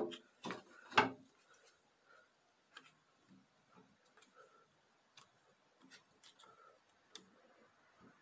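Faint, scattered small clicks and ticks of plastic and metal as the ZF6HP28 transmission's solenoids are wriggled by hand and seated in the valve body, with a couple of louder knocks in the first second.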